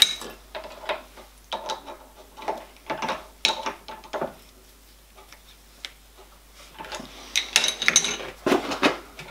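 Adjustable spanner clinking and clicking against a milling machine's collet nut as a small boring tool is tightened in, a string of irregular metallic clicks and knocks with a quieter pause about halfway through.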